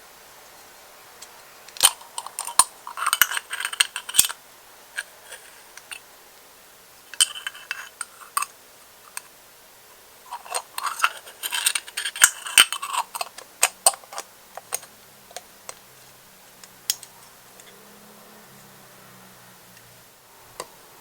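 Light metallic clinks, taps and rattles of a miniature Hawkins pressure cooker and its small parts being handled, in three bursts with scattered single clicks between.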